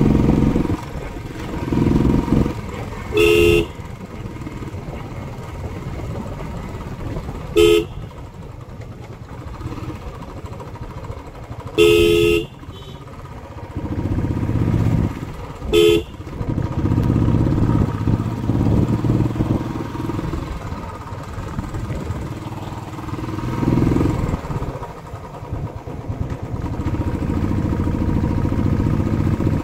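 Royal Enfield Classic 350's single-cylinder engine running on the move, swelling and easing with the throttle. A horn gives four short blasts about four seconds apart in the first half, the one near the middle the loudest.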